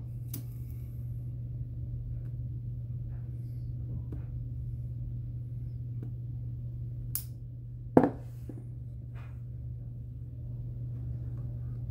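Tobacco pipe being relit with a lighter and puffed back alight: faint small clicks and puffs over a steady low hum, with a sharp click about seven seconds in and a louder knock just after.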